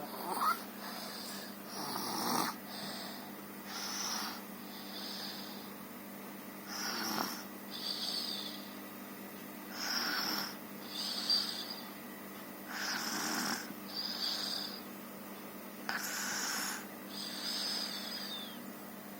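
A sleeping girl snoring: a rasping snore on each breath, about every three seconds, each followed by a thinner, higher breath sound.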